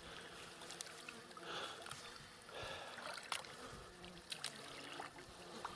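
Faint water sloshing as a seine net is dragged through a pond, with soft swishes about one and a half and two and a half seconds in, and a faint buzzing fly.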